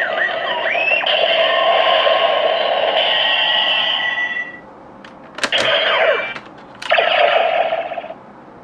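DX Neo Decadriver toy belt playing its electronic sound effects through its small built-in speaker. A long electronic effect with gliding tones runs until about four and a half seconds in, then two short sharp clicks each set off a further burst of about a second.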